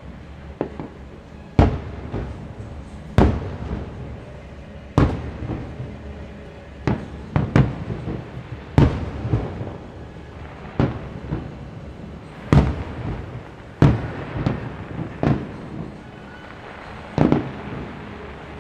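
Fireworks shells bursting in the distance: about a dozen sharp booms, one every second or two, each trailing off briefly.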